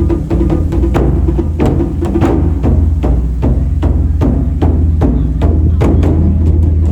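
Japanese taiko drumming: a run of sharp strikes, several a second, over a deep, steady low boom.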